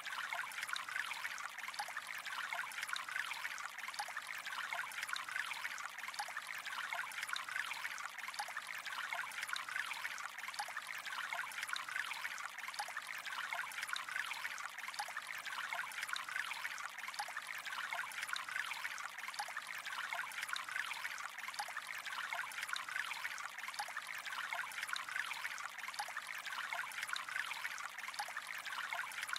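Gently flowing, trickling water, steady and unbroken, with many small bubbling splashes.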